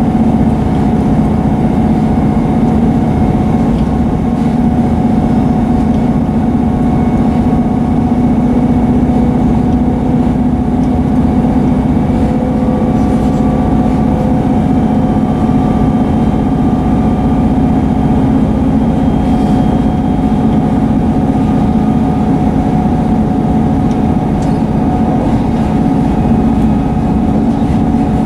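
Class 158 diesel multiple unit under way, heard from inside the coach: its underfloor diesel engine drones steadily over the running noise of the train, with a few faint clicks.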